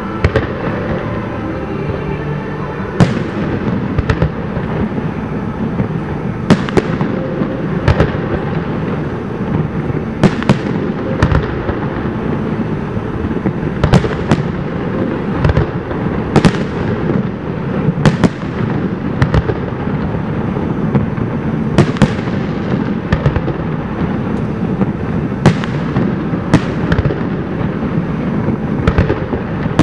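Aerial fireworks display: shells bursting in sharp bangs, irregular but about one a second, over a continuous rumble of further reports.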